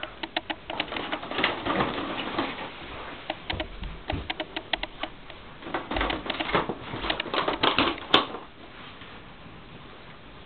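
Cats pawing and clawing at a cardboard advent calendar box: an irregular run of quick taps, scratches and cardboard clicks. The sharpest snap comes about eight seconds in, and after it the clicking stops.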